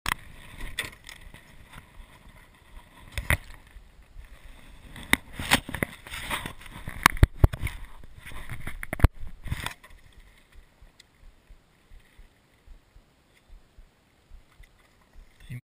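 Scattered knocks and thumps on an aluminium jon boat over a hiss of wind and water, thickest in the first ten seconds, then dying down to a faint hiss.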